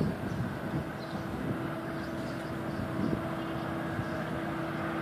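Steady rumble of distant vehicles with a constant low hum that neither rises nor fades.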